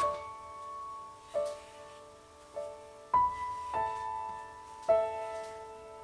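Soft background piano music: single notes and chords struck about once a second, each left to ring and fade.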